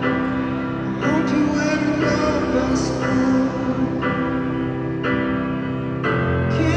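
Live pop concert music: a male singer at the microphone with the band playing, recorded from the audience in the arena.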